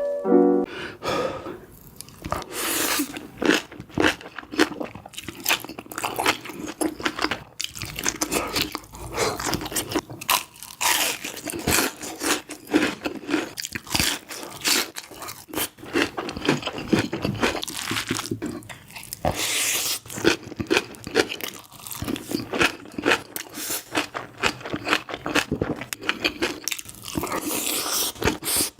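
Close-miked eating: repeated crunchy bites and chewing of crisp food, in a steady irregular stream of sharp crunches.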